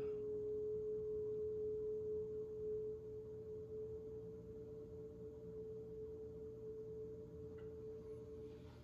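Electric potter's wheel spinning, its motor giving a steady, pure whine that gets a little quieter about three seconds in.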